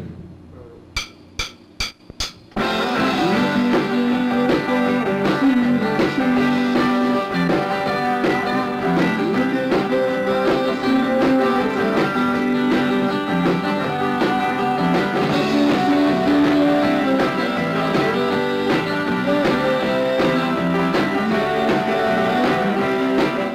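Rock band playing: electric guitars and a drum kit, with a sung vocal, in a roots-pop/cowpunk style. A few sharp clicks come first, and the full band comes in about two and a half seconds in.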